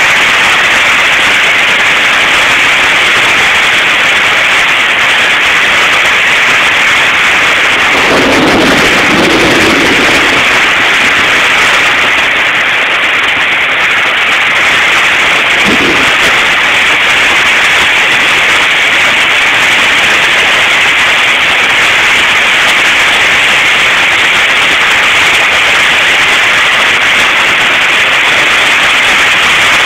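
Heavy rain pounding steadily on a covered patio roof, a loud, even hiss. A short, lower-pitched sound stands out from it about eight seconds in.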